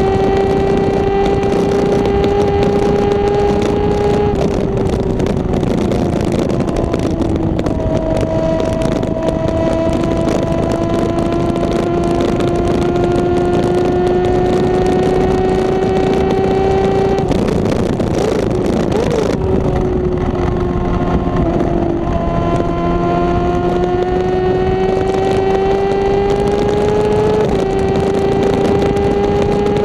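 Honda CBR600RR inline-four with a Two Brothers aftermarket exhaust, heard from the moving bike: the engine note climbs slowly in pitch under steady throttle, easing off and stepping down at gear changes a few times, with heavy wind rush over it.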